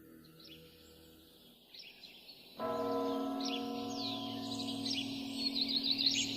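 A church bell struck once about two and a half seconds in, its tone ringing on steadily, over birds chirping and twittering.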